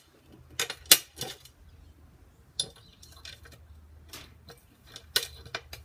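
A scattered series of sharp, light clinks and taps of small hard objects, glass-like, about seven in all, the loudest about a second in.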